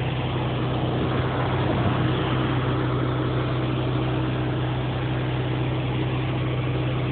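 Pressure washer's engine running at a steady speed, with the even hiss of the water spray over its hum.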